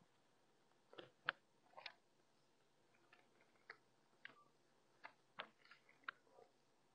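Faint, scattered short rustles and taps of paper sheets being handled and pages turned on a desk. They come bunched about a second in and again through the second half.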